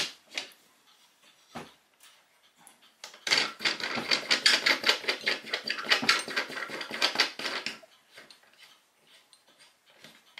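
Wooden knobs on a homemade plywood mainspring winder's clamp being screwed down to grip a clock spring barrel: one click, then a fast rattle of small clicks for about four seconds in the middle.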